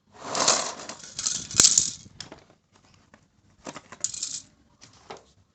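Plastic toy pieces and their packaging handled by hand: several bursts of rustling and clattering, loudest in the first two seconds, with a sharp click about one and a half seconds in.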